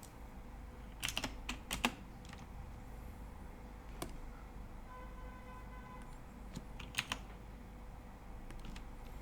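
Computer keyboard keystrokes in scattered bursts: a quick cluster about a second in, a single stroke a few seconds later, then a quick pair near the end, over a low steady hum.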